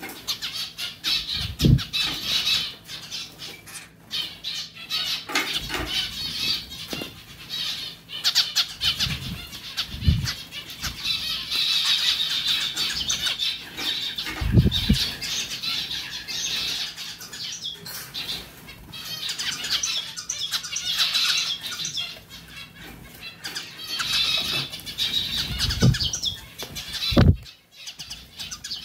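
Zebra finch bathing in a pet water fountain, fluttering its wings and splashing in flurries over the steady trickle of the fountain's spout. A few dull low thumps stand out, the loudest near the end.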